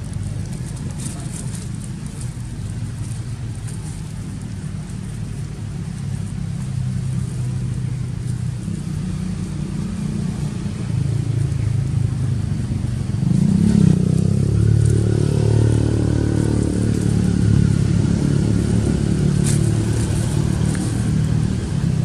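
A motor vehicle engine running nearby, a steady low hum that grows louder about halfway through.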